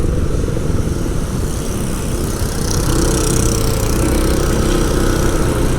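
Small engine running steadily at an even pace, with a low hum and road noise.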